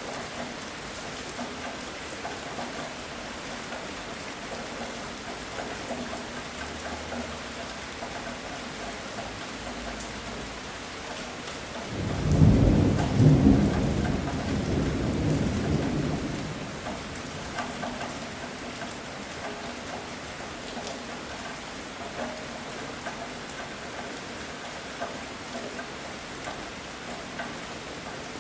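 Steady heavy rain, with a clap of thunder starting suddenly about midway: two sharp cracks, then a rumble that fades over a few seconds before the rain carries on alone.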